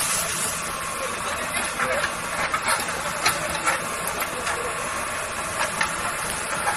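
People talking indistinctly over the steady hum of a running engine.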